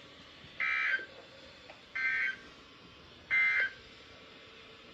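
NOAA Weather Radio SAME digital data bursts: three short two-tone squawks about 1.3 seconds apart, over faint radio hiss. Their shortness fits the end-of-message code that closes the Required Weekly Test.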